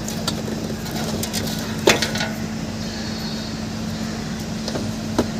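A few scattered light clicks and knocks, the loudest about two seconds in, from a Honda Activa scooter's handlebar being rocked: the clunk of play in the steering head. A steady low hum runs underneath.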